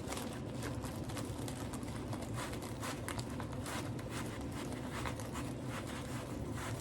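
Packing-up sounds: many quick little clicks and rustles as a rolled diamond-painting canvas and small bags of resin drills are handled and put back in their box, over a steady low hum.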